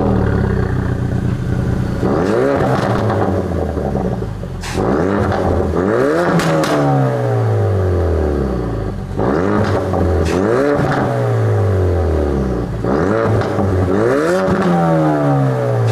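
Ford Focus RS Mk III's turbocharged 2.3-litre four-cylinder revved at a standstill through a Mountune axle-back exhaust in normal mode. There are four rev blips, each dropping back with pops and crackles on the overrun.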